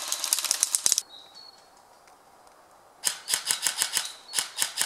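Airsoft guns firing in rapid full-auto bursts of sharp clicky shots, about nine a second. One burst lasts about a second, then after a pause of about two seconds two more bursts follow near the end.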